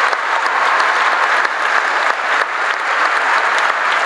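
Large church congregation applauding: dense, steady clapping.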